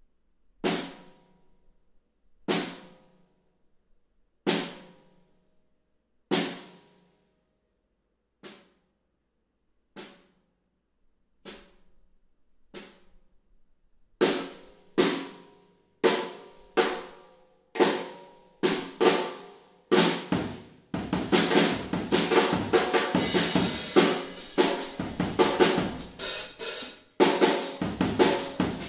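Odery Eyedentity 14 x 4.5 in. all-maple snare drum, tuned low, struck in single hits about two seconds apart that get softer, then played faster. In the last third it becomes dense playing, with bass drum and cymbals joining the snare.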